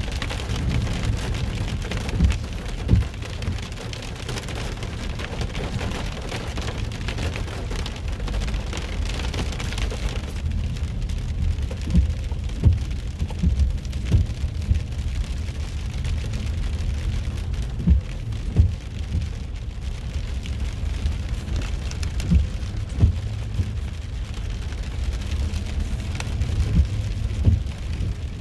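Heavy rain drumming on a car during a hurricane downpour, with scattered louder drop hits at irregular moments over a steady low rumble.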